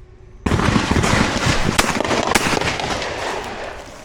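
A 12-gauge skeet shotgun fires once about half a second in, and its report rolls on across the range as a long echo that fades over about three seconds.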